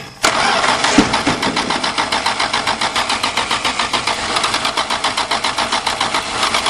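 Starter motor cranking the cold 1977 Dodge Tradesman van's slant-six engine, which does not catch. The cranking is a steady rhythm of about five compression pulses a second, starting abruptly about a quarter second in. The owner puts the failure to start down to too little gas squirted in.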